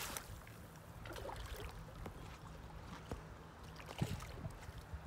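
Water splashing beside a boat as a hooked bass thrashes at the surface next to the hull, over a steady low hum with scattered small knocks and clicks.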